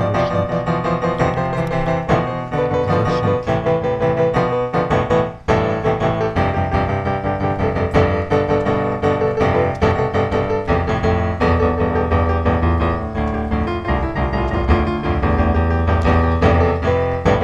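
Background piano music with a steady bass line, dipping briefly about five seconds in.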